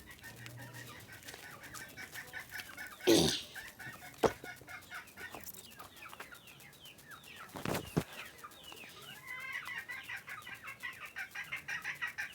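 Domestic chickens clucking, with two loud sudden calls about 3 and 8 seconds in. From about 9 seconds a hen breaks into a fast, insistent run of calls: screaming after attacking one of the chicks.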